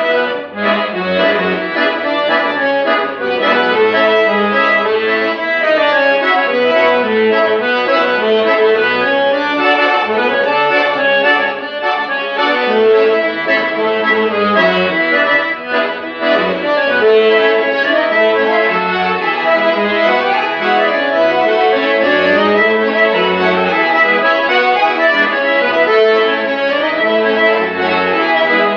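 Accordion playing a tune with a moving bass line under the melody, without pause.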